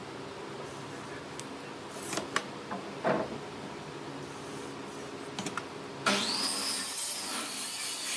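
Hand tools handled on pine boards while marking out: an aluminium speed square and a pencil knock and scrape on the wood a few times, then a louder scratchy hiss lasting about two seconds near the end. A steady machine hum runs underneath.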